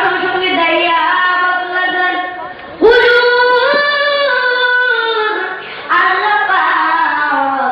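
A child's voice singing in three long, drawn-out phrases, each starting strongly and held on wavering notes: the melodic, sung delivery of a Bengali Islamic sermon (waz).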